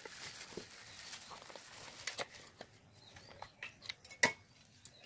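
Rustling of a thin plastic bag and small fish dropping onto an earthenware plate as they are tipped out, with scattered light taps and one sharp click about four seconds in.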